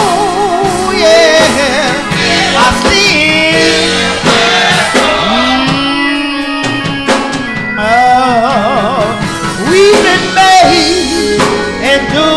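Gospel song with band accompaniment: a lead vocal sings long, wavering vibrato notes and runs over drums and instruments.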